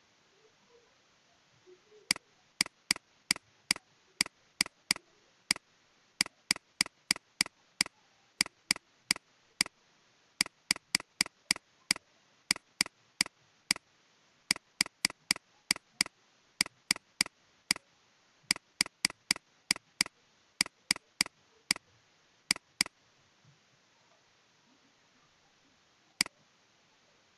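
A long run of sharp computer mouse clicks, two to three a second in short groups, starting about two seconds in and stopping a few seconds before the end, with one more click near the end.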